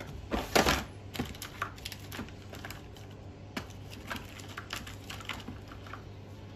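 Light clicks and clacks of small parts and tools being handled on a workbench, scattered irregularly, with a louder cluster about half a second in.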